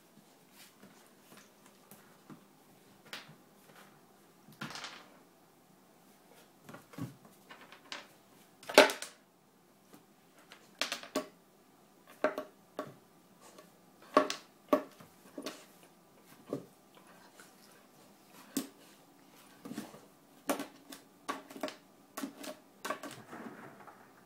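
Old English Sheepdog puppy playing with an ice cube on a tile floor: irregular clicks and knocks as the ice skids and clatters across the tiles and her claws scrabble after it. The loudest knock comes about nine seconds in, and the taps come thicker from about eleven seconds on.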